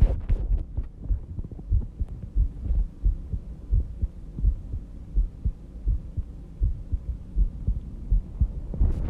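A person's heartbeat during sleep: a slow, steady run of low, muffled thumps at about 70 beats a minute.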